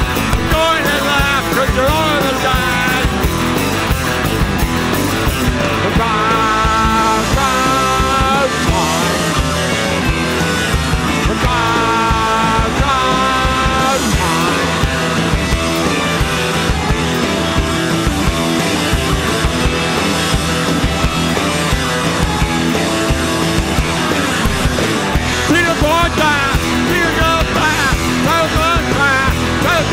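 Loud live rock band playing, with electric guitars and drums and a singer's voice coming in and out.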